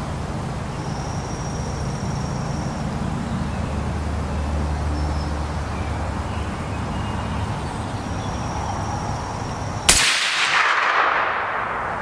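A single suppressed .30-cal rifle shot through a Sig Sauer SRD762Ti titanium suppressor about ten seconds in: a sharp report followed by a long fading echo. Before it there is only steady low background rumble.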